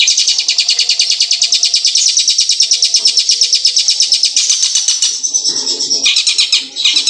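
Long-tailed shrike (cendet) singing a loud, long, rapid trill of fast repeated high notes, mimicking the song of the ciblek gunung. The trill breaks off about five seconds in and resumes in short bursts about a second later.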